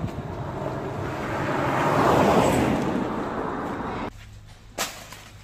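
A vehicle passing on a road: its noise swells to a peak about two seconds in, then fades, and cuts off abruptly about four seconds in. Then come two sharp chopping whacks about a second apart.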